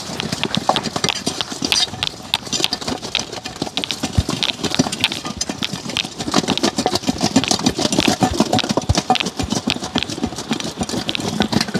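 Seasoned fish being shaken in a covered container to coat them: continuous rapid rattling and knocking with an occasional deeper thump.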